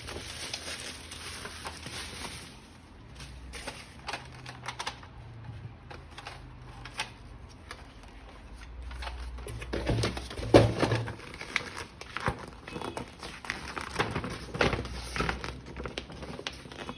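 Hands handling toy gun parts and packaging: plastic packaging crinkling and repeated small plastic clicks and clacks, with the loudest knocks about ten seconds in.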